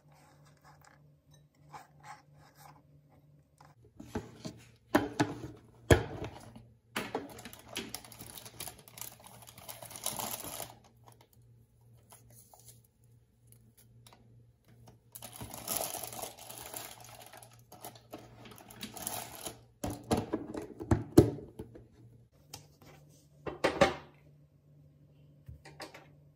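Kitchen handling sounds: sharp knife taps on a plastic chopping board, stretches of crinkling from foil and a plastic container, and a knock near the end as a glass bowl is moved.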